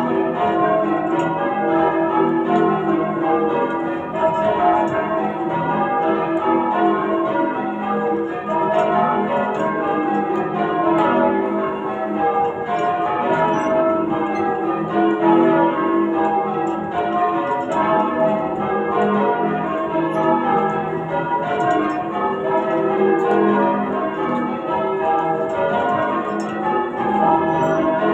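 Ring of eight church bells tuned to E with a 19 cwt tenor, cast by Thomas Bilbie and Llewellins & James, being rung in changes: a continuous run of rapid, overlapping bell strikes.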